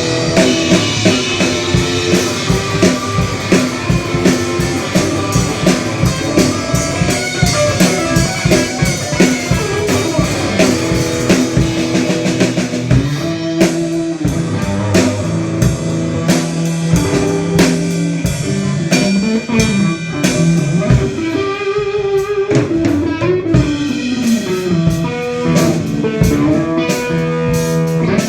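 Live band playing a blues-rock jam, with electric guitar over drum kit and bass.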